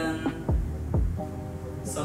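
Background music: a held synth chord with deep bass drum hits that drop in pitch, two of them close together about half a second and a second in.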